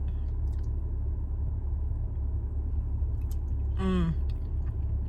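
A person chewing a mouthful of sausage and rice cake, with faint small mouth clicks over a steady low rumble. A short hummed 'mm' with a falling pitch comes about four seconds in.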